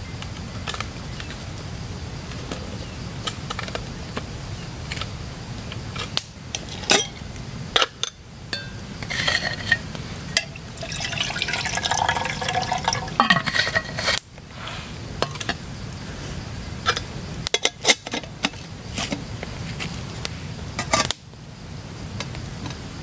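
Water poured from a stainless steel bottle into a small metal kettle for a few seconds, about ten seconds in, amid scattered clicks and knocks of metal cookware being handled.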